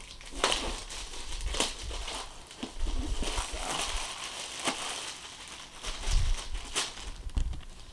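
Clear plastic wrapping crinkling and rustling as a boxed MacBook Pro is handled and unwrapped, with scattered sharp taps and clicks from the box.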